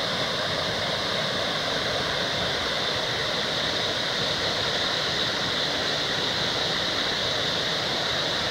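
Waterfall, falling water rushing in a steady, unbroken roar.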